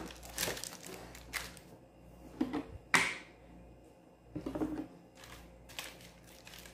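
Scattered crinkles and rustles of baking paper lining a round pizza pan, with soft pats as hands press and flatten a ball of pizza dough. The sharpest crackle comes about three seconds in.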